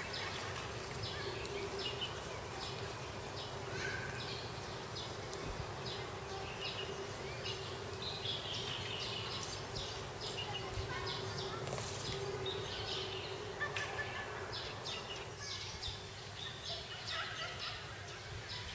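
Small birds chirping again and again in the trees, short high calls scattered throughout, over a steady low hum of background noise.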